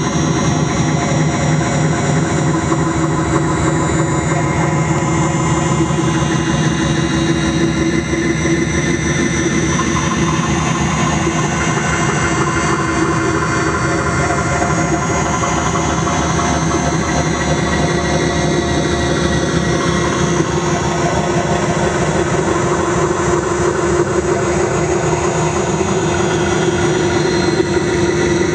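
Videotape read by a cassette tape head on a spinning turntable, preamplified through a cassette deck and run through a Whammy pitch pedal, a BP200 bass pedal and a Boss DD-5 digital delay. It makes a loud, steady electronic noise drone with several held tones that shift slowly.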